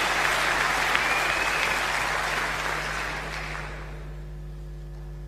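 Snooker audience applauding a shot, the applause dying away about three to four seconds in, over a steady mains hum.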